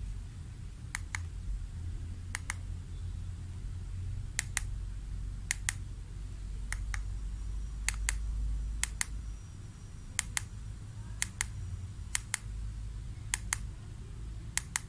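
Buttons on a small plastic IR remote control being pressed about a dozen times, roughly once a second, each press a quick double click. A low steady hum runs underneath.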